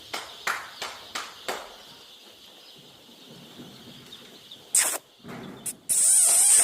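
A brood of day-old chicks peeping in a steady high chorus, with separate sharp peeps repeating every fraction of a second. A short loud burst of noise comes just before the end, then a longer, louder noisy burst to the end.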